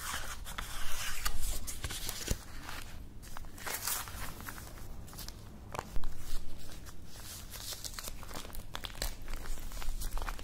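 Fingernails tapping and scratching on a paper-wrapped box while the paper wrapping crinkles and rustles as the ribbon is handled. Irregular soft rustles and clicks, with a few sharper taps, the loudest about six seconds in.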